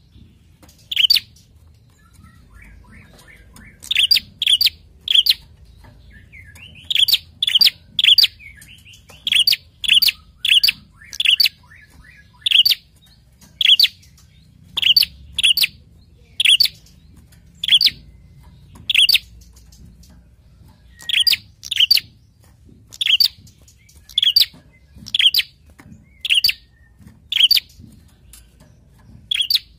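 Prenjak giving a long run of short, sharp chirps, about one a second and sometimes in quick pairs.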